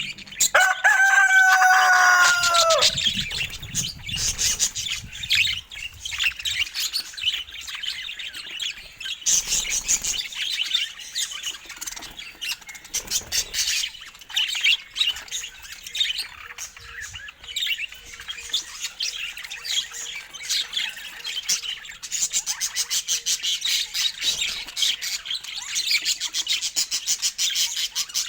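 Budgerigars chirping and chattering continuously, with a loud, long held call that falls away at its end in the first few seconds, and fast, rapid chatter near the end.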